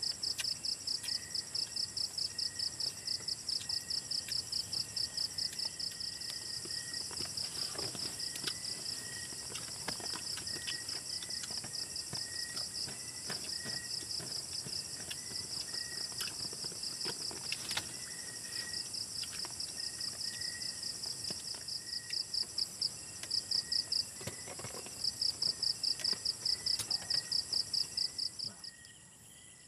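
Night insect chorus: crickets chirping in a fast, even pulsing trill over a steady high-pitched insect drone, with a fainter repeating chirp lower down. The pulsing pauses briefly now and then, and the whole chorus drops away near the end.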